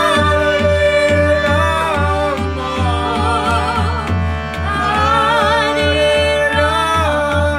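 Kirtan: a woman and a man singing a devotional chant together, with vibrato, over the sustained chords of a hand-pumped harmonium. A two-headed barrel drum, played by hand, keeps a steady beat underneath.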